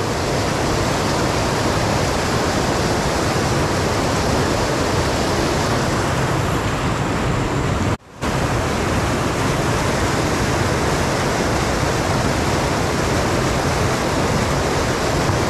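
Loud, steady rush of muddy river rapids pouring over rocks close to the microphone. The sound cuts out abruptly for a moment about halfway through, then resumes.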